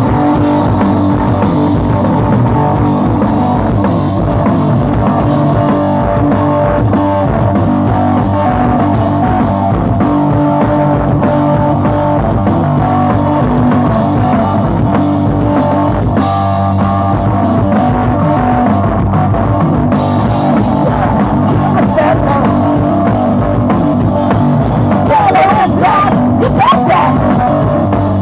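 Live punk blues rock band playing loud: amplified electric guitar over a drum kit.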